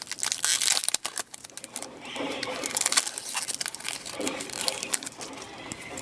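Hockey trading cards being handled and flipped through by hand: rustling and sliding card stock with many quick sharp clicks.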